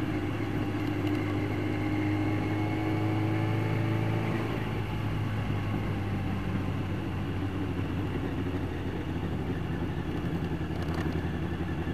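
Yamaha YZF 1000cc inline-four motorcycle engine running at road speed under steady throttle, heard with wind rush on the helmet-mounted microphone. The engine note rises slightly over the first four seconds or so, then drops back a little and holds steady.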